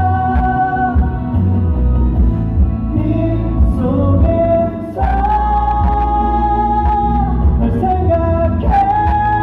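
A ballad sung live over a backing track with a heavy bass line. The voice holds long, steady notes and moves to new pitches about halfway through and again near the end.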